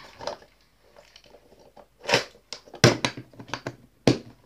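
Things being handled and packed away close to the microphone: a run of sharp clicks and knocks with some rustling, the loudest about two, three and four seconds in.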